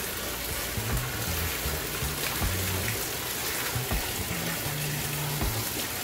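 Pump-fed indoor waterfall running: water pouring from a PVC pipe outlet down the back wall of a glass tank and splashing into the water below, a steady rush. The flow comes out of the pipe unevenly.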